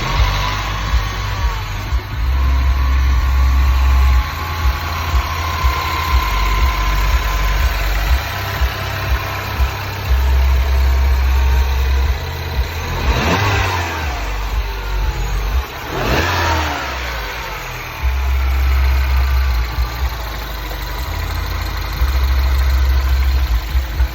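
R56 Mini Cooper S 1.6-litre turbocharged four-cylinder engine running on its first start after a timing chain replacement, idling with a low rumble and revved briefly twice a little past halfway.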